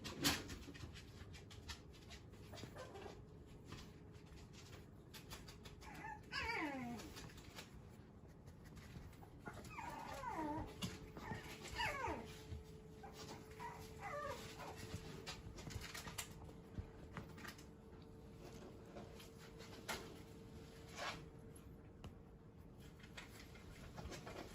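Shiba Inu puppy whimpering: a few high whines that slide down in pitch, with scattered small clicks and a faint steady hum behind.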